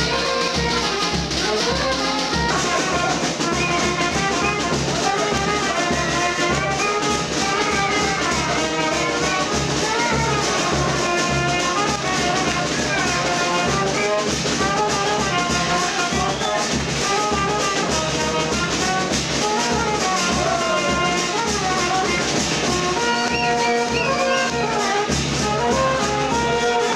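Brass-band dance music: trumpets play a winding melody over a drum beat, loud and unbroken.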